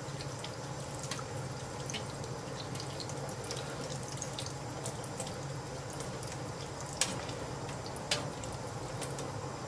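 Kitchen tap running into a stainless steel sink while pieces of preserved lemon are rinsed under the stream by hand, with a couple of short clicks near the end.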